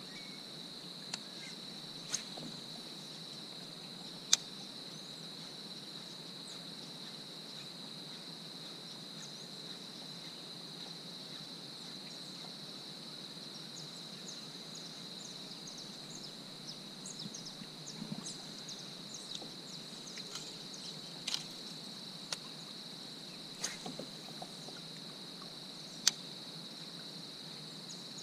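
Insects droning steadily on one high pitch, with several sharp knocks and clicks scattered through.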